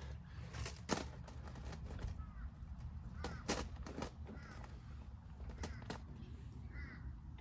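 Scattered sharp clicks and knocks of a tool on metal at the tractor's sump drain plug, the loudest about a second in. A crow caws faintly near the end.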